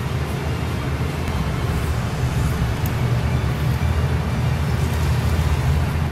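Steady low rumble with a hiss over it, the unchanging hum of running machinery.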